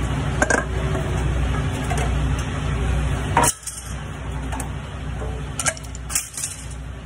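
A few sharp metal clinks and knocks of hand tools against a truck's steel exhaust aftertreatment housing, over a low steady hum that drops away about halfway through.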